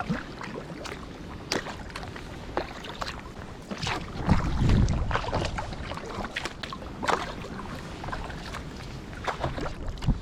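Kayak paddle strokes splashing in the water at irregular intervals, with gusts of wind buffeting the microphone.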